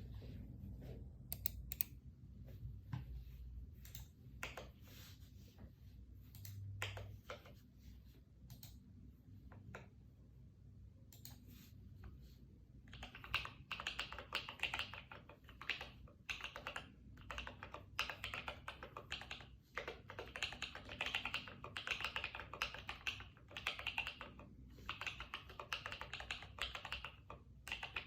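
Typing on a custom mechanical keyboard with lubed Holy Panda tactile switches and PBT keycaps. The first half holds scattered single keystrokes, then about halfway through it turns into steady, fast continuous typing.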